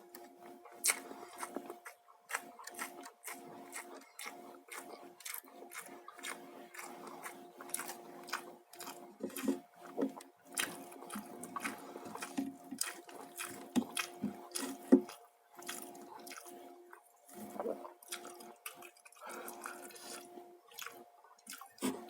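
Close-up eating sounds from a meal of fried chicken and rice: wet chewing and lip-smacking with many sharp, irregular clicks, over a faint steady hum.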